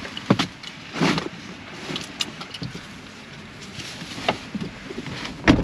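Knocks and rustling of someone climbing into a pickup truck, then a loud thump near the end as the door shuts, after which the outdoor noise drops away.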